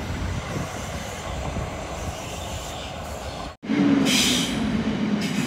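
A Southern Class 377 electric multiple unit passing at close range, a steady rumble of wheels and running gear. About three and a half seconds in the sound cuts off sharply and another electric train takes over with a steady low whine and a short hiss.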